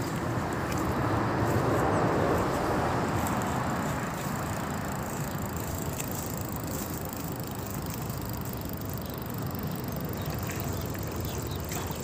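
Steady wind noise buffeting the microphone outdoors, swelling for the first few seconds and then easing.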